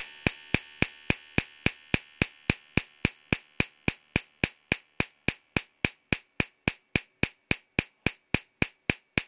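Homemade 50,000-volt Marx generator firing: each discharge snaps across its stage spark gaps and the output gap between two screw electrodes. The result is a sharp crack about three and a half times a second in an even rhythm.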